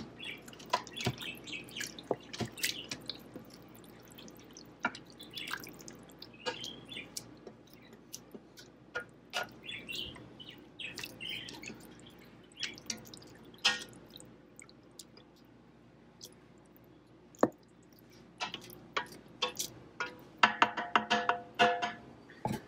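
Beef and onions sizzling in an Instant Pot's stainless steel inner pot on the sauté setting, with a spoon stirring and scraping against the pot in irregular clicks and crackles. Near the end a short steady pitched tone sounds over it.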